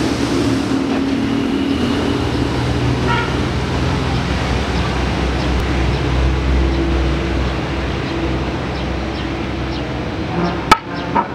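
Steady low rumble of road traffic running nearby, with two sharp knocks about half a second apart near the end.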